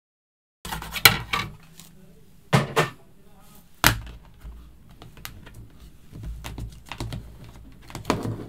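A plastic embossing folder and card being handled on a wooden desk: a few sharp clacks and knocks about 1, 2.5, 4 and 8 seconds in, with rustling between, as the folder is taken out and opened. The sound cuts in sharply about half a second in.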